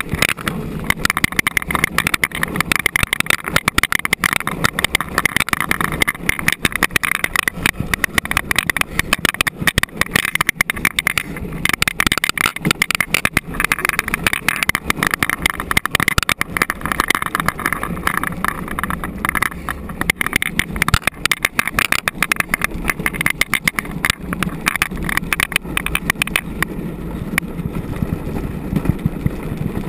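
Gravity luge cart rolling downhill on a sealed track: a steady rumble and rattle of its wheels and frame on the asphalt.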